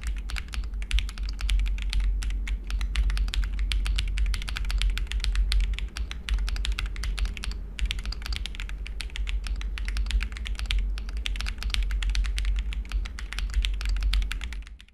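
Fast continuous typing on a sand-blasted MonsGeek M1W mechanical keyboard with Akko switches: a quick run of key clicks, pausing briefly three times, over a steady low hum.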